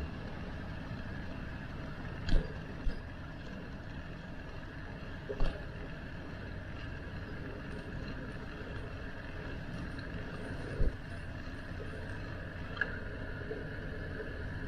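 Steady rush of wind and road noise from a bicycle ride, with several sharp knocks and rattles scattered through it.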